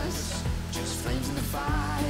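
Background music with a beat and a melody line.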